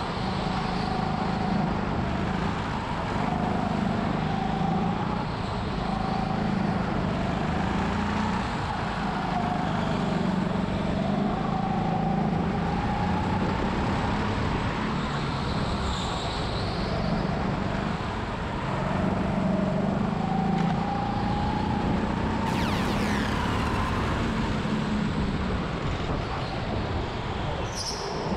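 Go-kart heard from on board while lapping a track: the motor's pitch rises and falls again and again as it speeds up on the straights and slows into the corners, over steady road and wind noise. There are a few short high squeals, about halfway and near the end.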